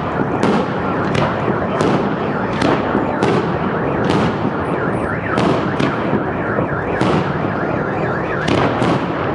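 Aerial fireworks shells bursting overhead one or two times a second over a dense, continuous din.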